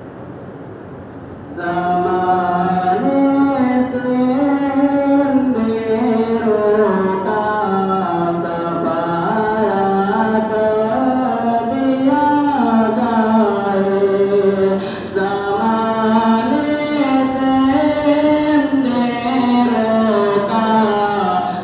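Singing of a song: one melodic line that steps up and down in pitch, beginning about a second and a half in.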